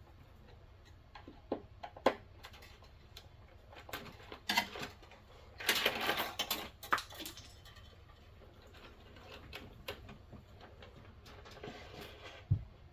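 Scattered small clicks and taps of wires being worked loose from a fire alarm control panel's terminals, with a longer rustling scrape about six seconds in and a dull thump near the end.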